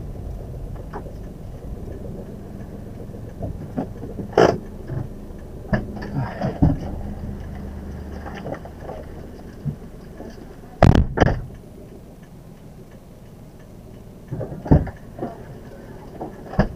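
Daihatsu Ayla's doors and rear hatch being worked as passengers load luggage: scattered clicks and knocks, a sharp double slam about eleven seconds in as the hatch shuts, and another thump a few seconds later. The idling engine hums underneath.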